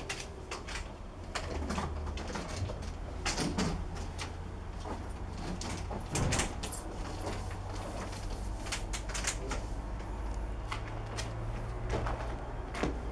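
Irregular knocks, clicks and scrapes of PVC electrical conduit and loose stones being handled as the pipe is laid in a rocky trench, over a steady low rumble.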